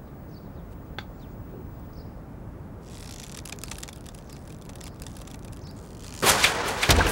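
An arrow loosed from a drawn bow: a sudden loud rush about six seconds in, after a few seconds of quiet outdoor ambience with faint chirps and a light high hiss.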